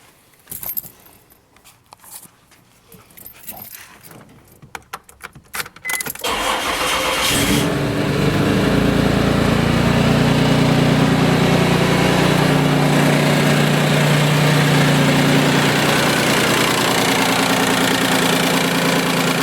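A 1995 Isuzu Rodeo's 3.2 V6 cranks and starts about six seconds in, after a few clicks, then settles into a steady idle. At idle it makes a noise that the owner suspects is timing belt slap or a rod knock.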